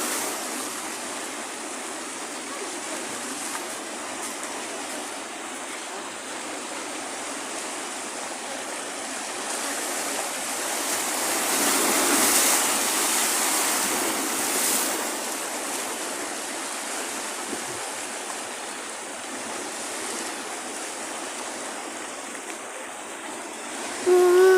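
Sea surf washing in as a steady rushing, swelling as a wave breaks about halfway through and then settling back. A short, loud pitched sound cuts in right at the end.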